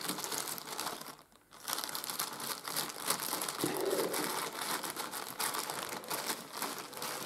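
Clear plastic zip-lock bag crinkling and rustling as hands open it and dig into its contents, with a brief pause about a second in.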